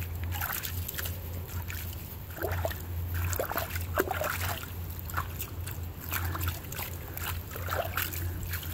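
River water sloshing and splashing in irregular bursts as a stoneware bottle is rinsed out by hand.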